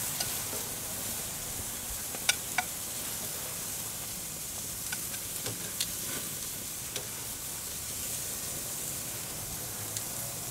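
Sliced tomatoes and onion rings sizzling on a hot gas grill's grate, a steady hiss, with a few short sharp clicks as the pieces are lifted off the grate.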